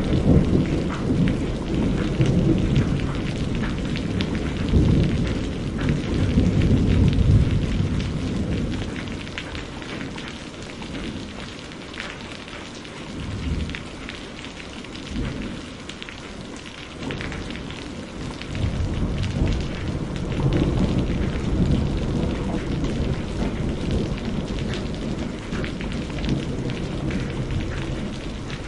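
Steady rain with rolling thunder: low rumbles through the first several seconds, easing to rain alone in the middle with a couple of brief grumbles, then a long rumble building again about two-thirds of the way in.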